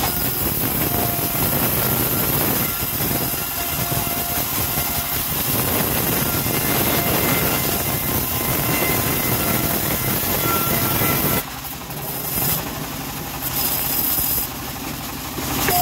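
Homemade vertical bandsaw mill running under load, its blade ripping lengthwise through a weathered teak plank with a steady machine drone. The noise dips in level twice near the end.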